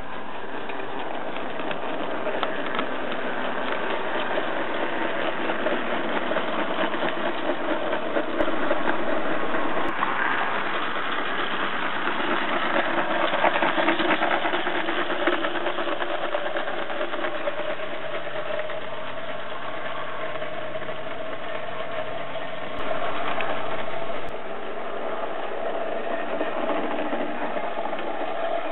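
A 16mm-scale narrow-gauge model locomotive running with its train on a garden railway: a steady, engine-like mechanical running sound, briefly louder twice.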